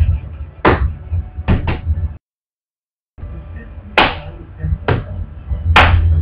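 Music backing track: sharp drum hits roughly every second over a steady bass. It drops out to dead silence for about a second partway through, then comes back.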